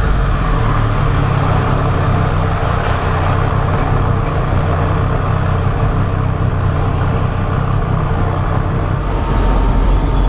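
Triumph Street Triple R motorcycle's inline three-cylinder engine running while riding, with steady wind rush over the microphone.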